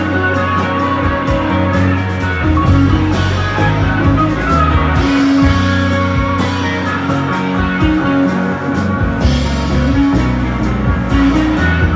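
Live rock band playing an instrumental passage: acoustic and electric guitars over electric bass and a drum kit with cymbal hits, with no singing.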